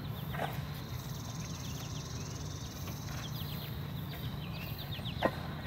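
Outdoor ambience: small birds chirping in short falling notes over a steady low hum, with a faint high trill in the first half. A single sharp click sounds about five seconds in.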